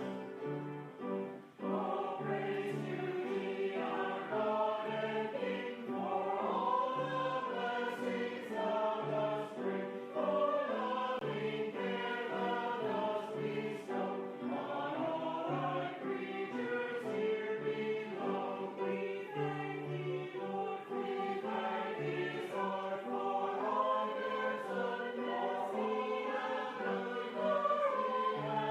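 Choir singing a hymn with keyboard accompaniment, starting after a brief piano lead-in about a second and a half in.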